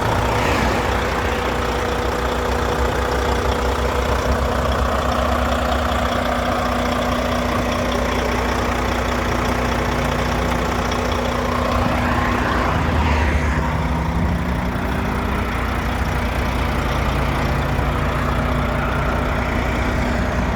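Volvo FH12 truck's straight-six diesel engine idling steadily, with a brief rise and fall in pitch about halfway through.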